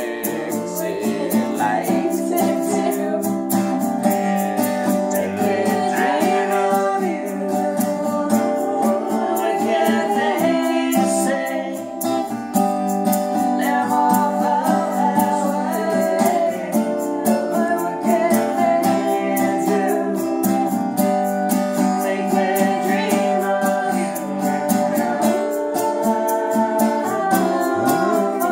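Acoustic guitar strummed steadily, with a voice singing along.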